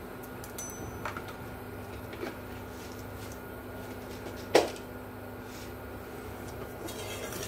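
Steady low kitchen hum while a heavy dry pan heats on the stove. A few light clicks break it, and a sharper knock comes about four and a half seconds in.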